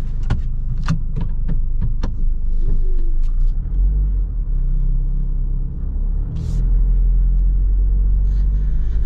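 A van's engine running, heard from inside the cab, with a few sharp clicks in the first two seconds. The engine gets louder about six and a half seconds in as the van pulls away.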